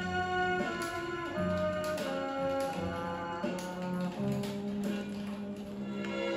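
Instrumental orchestral music played back from a vinyl record on a turntable, with held notes that change every half second or so.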